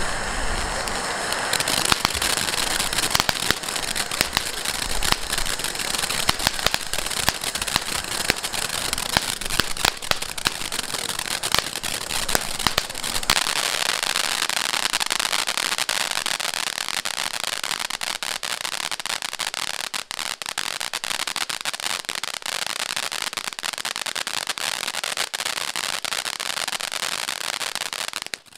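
Liuhua LH1-1-5 ground fountain firework burning: a continuous loud hiss of spraying sparks, full of sharp crackling pops. About halfway through the low rumble drops away, leaving a brighter hiss and crackle.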